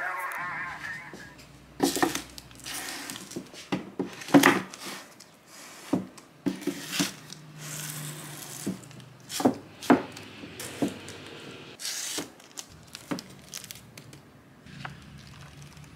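Paperback manga volumes being slid and straightened by hand on an IKEA BILLY bookcase shelf: irregular light knocks as the books tap against each other and the shelf, with soft sliding and rubbing in between.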